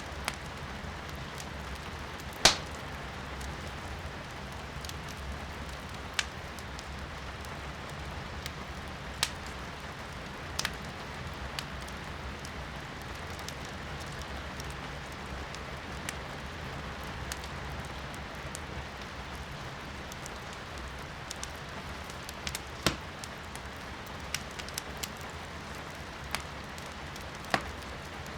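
Firewood burning in a fireplace, crackling with scattered sharp pops, the loudest about two and a half seconds in, over a steady hiss of rain heard from inside the room.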